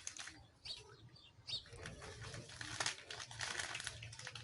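Irregular crinkling and rustling as table salt is added to the water in the filter.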